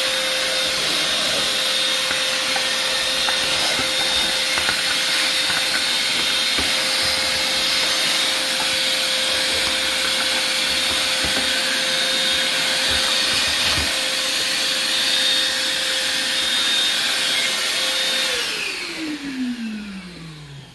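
Small shop vac running steadily with a constant hum and high whine, sucking up sanding dust. About 18 seconds in it is switched off and its motor winds down, the pitch falling away.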